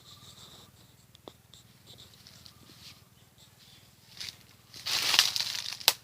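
Rustling of cut grass with light clicks, and a louder burst of rustling about five seconds in that ends in a sharp click.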